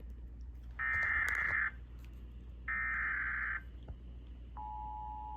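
Emergency Alert System SAME header: the second and third of its three raspy digital data bursts, each about a second long with a second's gap between. About four and a half seconds in, the steady two-tone EAS attention signal starts, marking the opening of a new alert.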